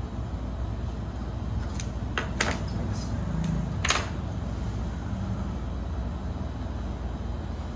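A handful of small clicks and taps, about two to four seconds in, from a syringe and vial being handled at a supply tray, over a steady low room hum.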